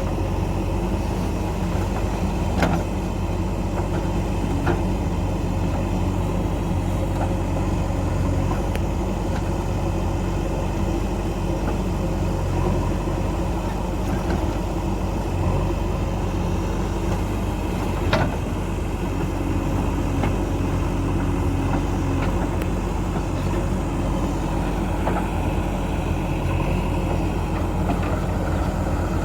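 Heavy diesel engine running steadily, with two sharp metallic knocks, one a few seconds in and one past the middle.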